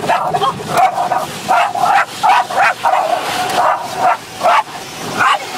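Dog barking from inside a car at a car wash: a rapid string of short, high-pitched barks and yips, about two or three a second.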